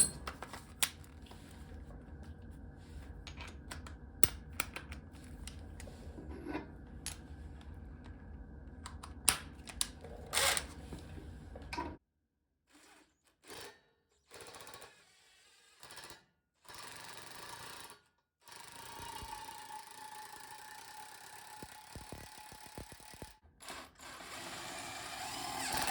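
Scattered clicks and light knocks of hand tools on metal, a socket wrench and socket adapter being fitted and worked on the motorcycle's fasteners, over a faint steady room hum.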